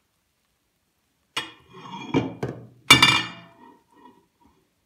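Cookware clinking and knocking on a kitchen counter as a saucepan of milk and a glass pot lid are moved and set down: a handful of sharp clinks and knocks, starting a little over a second in, the loudest near the three-second mark with a brief ring after it.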